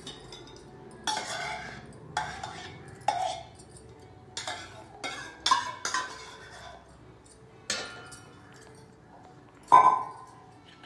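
Kitchen utensils clinking and knocking against a cooking vessel as curd is spooned in: about nine separate sharp clinks with a short ring, the loudest near the end.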